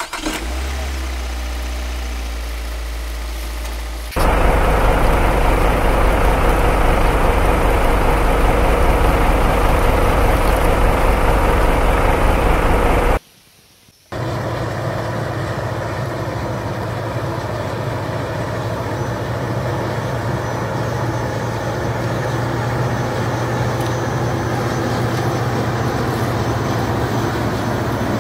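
Heavy vehicle engine running steadily, laid over the picture as a sound effect, since the plastic toys have no motors. It comes in sections with abrupt cuts: a steadier, lower hum at first, a louder and rougher stretch from about four seconds in, a gap of about a second after thirteen seconds, then steady running again.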